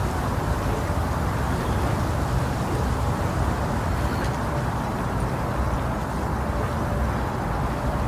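Steady, unbroken rushing noise, heaviest in the bass and dull in the highs: baby-sleep 'white noise' made to imitate the sound inside the womb.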